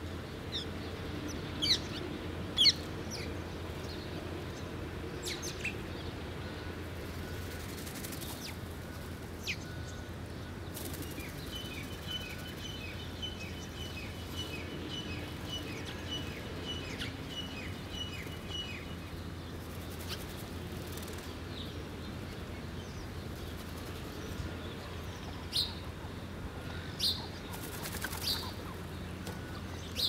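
Birds feeding and calling: scattered short, sharp chirps, a rapid run of repeated notes from about 11 to 19 seconds in, and a few brief flutters of wings, over a steady low hum.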